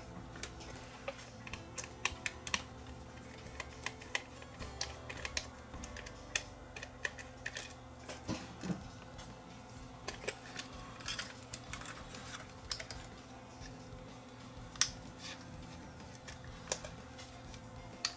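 Light, irregular clicks and ticks of a small screwdriver and small metal and plastic parts being handled while the screws holding the cassette loader are taken out of a Sony DAT tape transport, over a faint steady hum.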